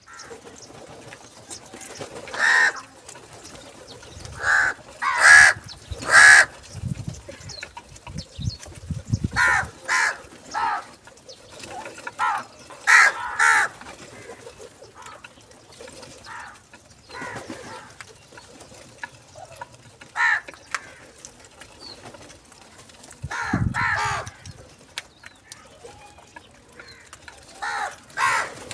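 Crows cawing: a string of short, harsh calls, often two in quick succession, coming every few seconds, with the loudest about a quarter and half of the way through.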